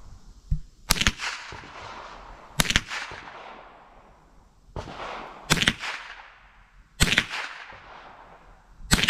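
Rifle shots: five sharp cracks spaced unevenly, about one and a half to three seconds apart, each ringing off with a short echo.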